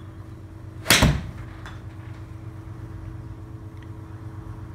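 A 7-iron striking a golf ball off a hitting mat: one sharp, loud crack about a second in, over a steady low hum.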